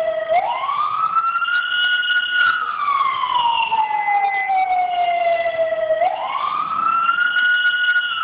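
Emergency vehicle siren on a slow wail, its pitch sliding up, holding, then falling slowly and rising again, about six seconds to each cycle, sounded to warn residents to evacuate ahead of river flooding.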